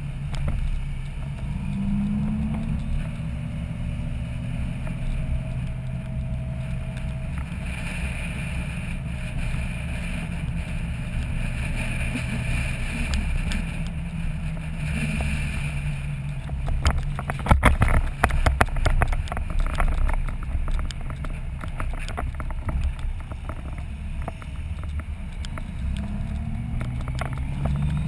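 Touring motorcycle's engine running at town speed, its note rising as it pulls away near the start and again near the end, with wind noise on the microphone. A cluster of sharp knocks about two-thirds of the way through.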